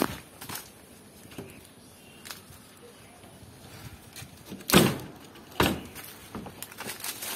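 Footsteps crunching through dry leaves and grass, with two louder crunches a little under five seconds and about five and a half seconds in.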